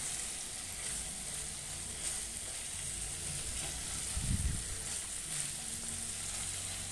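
Marinated chicken pieces sizzling steadily in butter in a nonstick frying pan, while a silicone spatula scrapes and turns them over. A dull knock about four seconds in.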